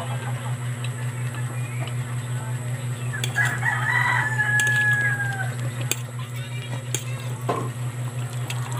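A rooster crows once, about three seconds in, ending in a long drawn-out note, over a steady low hum.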